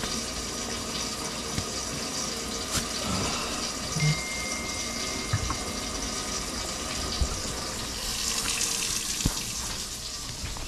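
Water running steadily from a tap into a sink, with a few light knocks.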